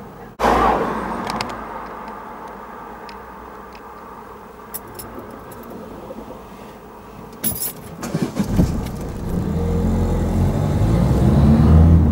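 A car on the move: quiet running with a few light clicks, then from about two-thirds of the way through a low engine and road rumble that grows steadily louder as the car pulls forward.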